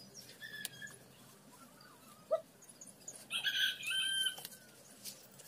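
A single bird call lasting about a second, a little past the middle, over a few faint clicks.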